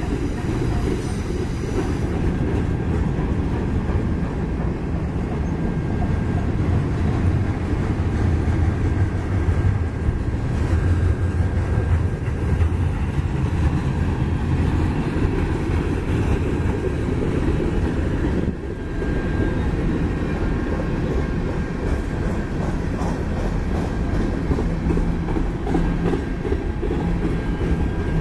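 Mixed freight train cars, covered hoppers and loaded flatcars, rolling steadily past on steel wheels over the rails: a continuous, mostly low-pitched rolling noise.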